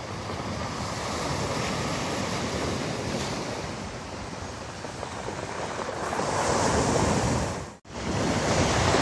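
Storm surf breaking on a pebble beach: a steady roar of waves that swells and ebbs, building to its loudest as a wave breaks near the end. About eight seconds in, the sound cuts out for an instant.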